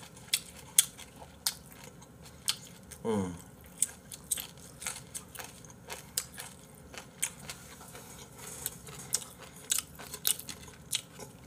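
A person chewing crunchy, chewy fried chicken gizzards close to the microphone: a run of sharp crunches and clicks, irregular throughout. A brief vocal sound falling in pitch comes about three seconds in.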